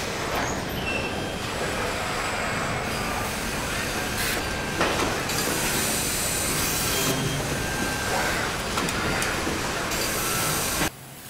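Machinery noise of an automated car body-shop line with industrial robots: a steady mechanical din with repeated hisses and a few brief faint whining tones. The noise drops away abruptly near the end.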